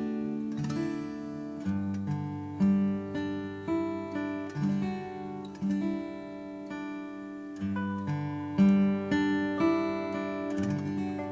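Background music: acoustic guitar picking sustained chords, with a deep bass note entering about two seconds in and again near eight seconds.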